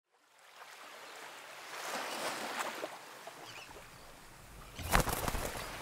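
Sea ambience of surf and wind fading in from silence, with a louder rush of noise about five seconds in.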